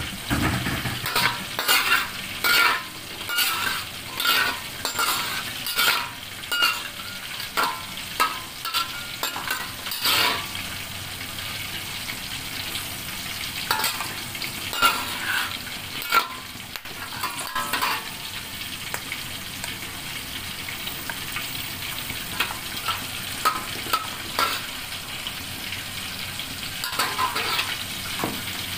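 Whole spices sizzling in hot oil in a stainless steel wok. A metal spatula scrapes and clinks against the wok in quick strokes, many through the first ten seconds and in shorter runs later.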